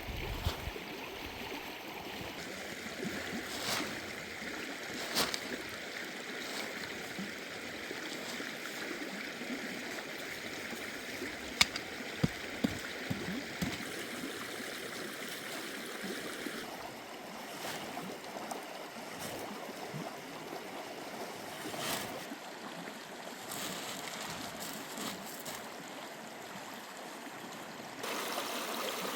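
Steady rushing water, like a stream or rain, with a few sharp clicks about twelve seconds in.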